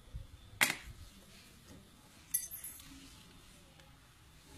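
Sharp metallic clicks from a hand-held plier-style lead sinker mold and tools being handled: one about half a second in, and a second, with a brief ringing clink, a little after two seconds.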